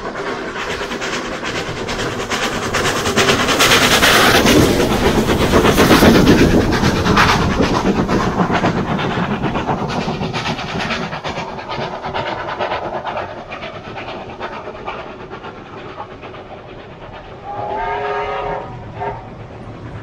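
Steam-hauled passenger train of former NSW Government Railways 4-6-0 locomotives passing, loudest about four to six seconds in as the locomotive goes by. The carriages then roll past with wheels clattering on the rails. Near the end the locomotive's steam whistle sounds, one longer blast and then a short one.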